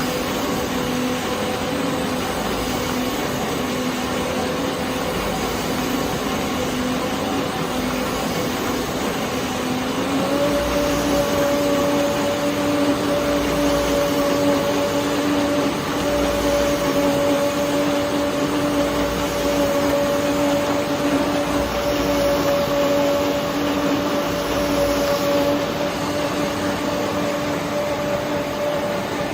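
Wide-belt CNC pressure sanding machine running: a steady mechanical hum and rushing noise. About ten seconds in, the hum steps up slightly in pitch and gets a little louder.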